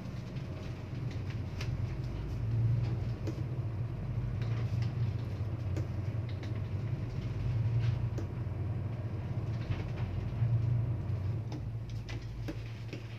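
Supply vessel's engines running with a steady low drone, heard inside the wheelhouse while the vessel manoeuvres. The drone swells in level about three times: about three seconds in, about eight seconds in, and again near ten seconds.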